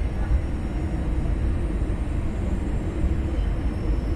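Steady low rumble of an Airbus A320-200's jet engine and airflow, heard from inside the passenger cabin beside the wing.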